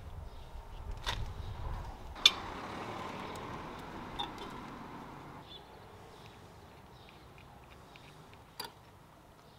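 Tools and metal brake parts clicking and knocking during a brake pad change. The loudest knock comes about two seconds in and is followed by a hiss that fades over a few seconds, with a few lighter clicks after it.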